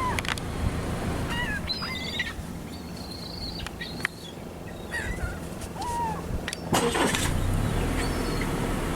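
Seagulls calling in short, bending cries, many times, over a steady low rumble, with a brief loud rushing noise about seven seconds in.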